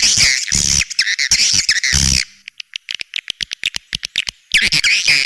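Swiftlet calls played as an outside lure sound for a swiftlet house: dense, high twittering chirps that break off about two seconds in for a run of rapid, sharp clicks, then resume near the end.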